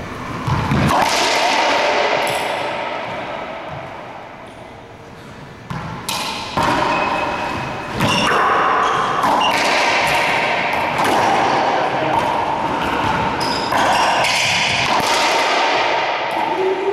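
Racquetball play in an enclosed court: the hollow rubber ball is struck repeatedly by racquets and rebounds off the walls and floor. Each hit rings with the court's echo. The hits come thick and fast from about six seconds in.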